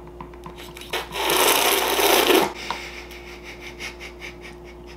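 A rough rubbing noise about a second and a half long, over a faint steady hum.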